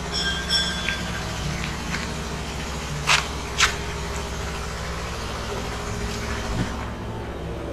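A motor vehicle engine running steadily, with a few short high tones in the first second and a half and two sharp knocks about half a second apart around three seconds in.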